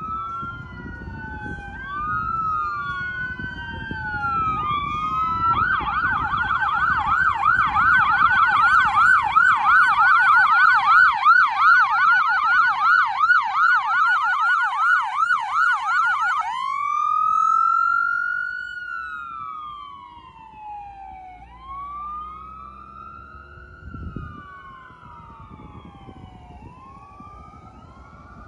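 Ambulance siren: a slow rising and falling wail, switching about five seconds in to a fast yelp, then back to the wail about sixteen seconds in and fading away as the ambulance drives off.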